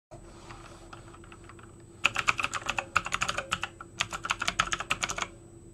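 Typing on a computer keyboard: a quick run of keystrokes in several short flurries, starting about two seconds in and stopping shortly before the end.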